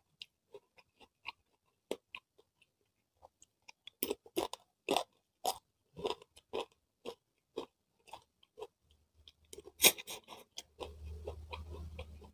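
Close-miked eating sounds: wet chewing and biting in a string of short sharp clicks and crunches, busiest a few seconds in, with the loudest about ten seconds in, as sweet corn kernels are bitten off the cob and chewed. A faint low hum sits under the last second or so.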